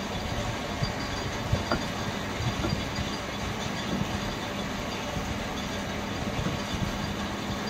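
Steady machinery noise with a constant low hum, with a few light knocks scattered through it.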